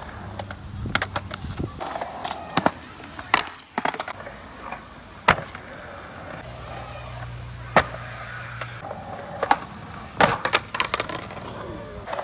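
Skateboard wheels rolling on smooth concrete with a steady low rumble, broken by many sharp clacks as the board hits the concrete.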